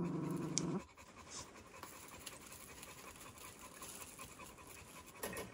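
A puppy growling in a low, steady rumble over a toy it won't share, stopping about a second in; then only faint small clicks and rustles.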